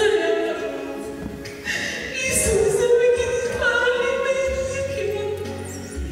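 A gospel song sung into a microphone, with long held notes. A low, steady accompaniment comes in about four and a half seconds in.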